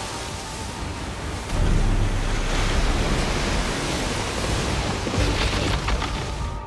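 Film sound effect of a torrent of floodwater rushing: a loud, dense wash of water over a deep rumble that swells sharply about a second and a half in.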